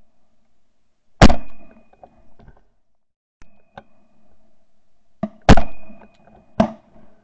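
Shotgun shots recorded by a camera mounted on the gun's barrel: one loud shot about a second in, another about four seconds later, and a further, slightly weaker shot about a second after that.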